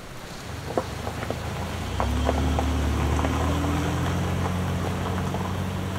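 Steady rain with scattered drop clicks; about two seconds in, a car engine comes in with a steady low hum that rises slightly in pitch as the car moves off.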